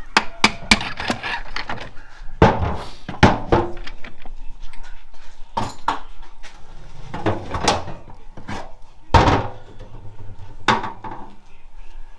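Irregular clanks, clicks and knocks of metal parts from a 4L65E automatic transmission being handled and set down during teardown, with a loud clatter about nine seconds in.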